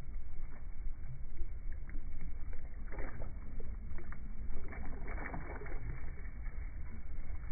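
Small waves splashing and lapping against a floating jetty, with wind rumbling on the phone's microphone.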